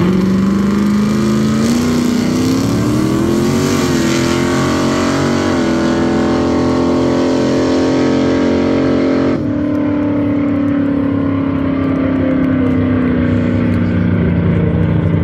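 Drag-racing car's engine at full throttle, launching off the start line and running down the strip. Its pitch climbs and breaks back twice at gear changes, about four and five and a half seconds in. About nine seconds in the sharp top of the sound suddenly drops away, and a steadier, lower engine note carries on, slowly falling.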